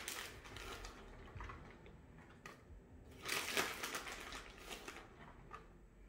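Plastic bag of shredded mozzarella crinkling as it is shaken and squeezed to sprinkle the cheese, in uneven bursts, the loudest about three seconds in.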